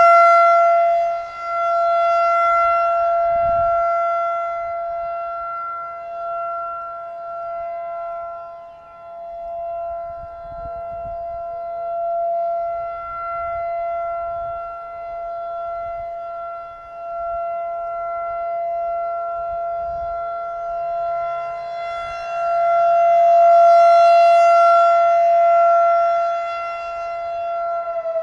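Federal Signal 2001-DC outdoor warning siren sounding the steady full-alert signal: one held, unwavering tone whose loudness swells and fades as the rotating horn sweeps past.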